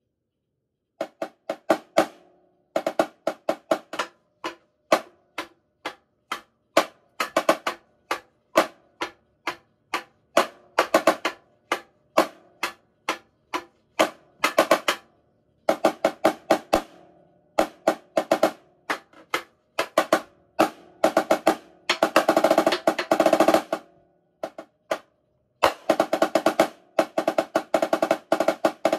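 Marching snare drum played with sticks in a solo: groups of sharp, rhythmic strokes and quick runs, starting about a second in, with a long, dense roll past the middle.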